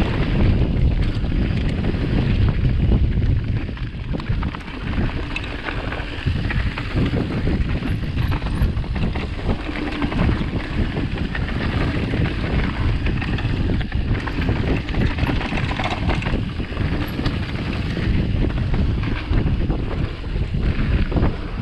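Wind buffeting the microphone of a mountain bike ridden fast down a dirt enduro trail, with tyre noise and frequent short knocks and rattles from the bike over rough ground.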